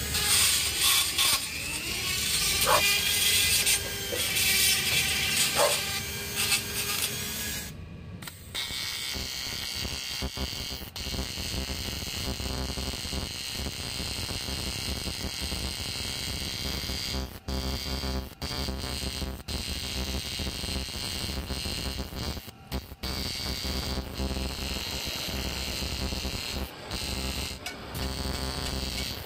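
A small power tool whirs at high pitch for the first several seconds. After a sudden break about eight seconds in, a TIG welding arc hums steadily, building up weld on an aluminium motorcycle crankcase.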